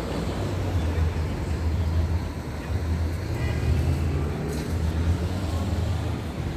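Steady low rumble of urban traffic, a vehicle engine running nearby.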